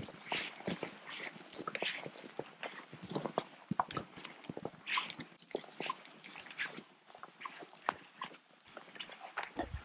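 Footsteps of two people walking on a dry dirt trail strewn with twigs, grass and pine needles: an irregular run of crunches and snaps.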